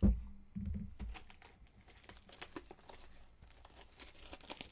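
Plastic wrap crinkling and tearing as a sealed box of trading cards is unwrapped, with a low thump at the start and another just before a second in as the box is handled.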